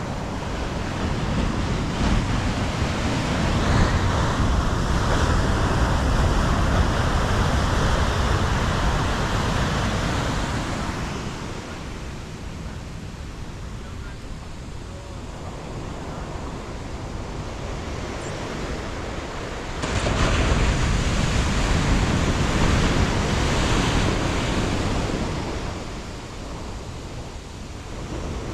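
Ocean surf breaking and washing on the beach, rising and falling in two long swells about ten seconds apart.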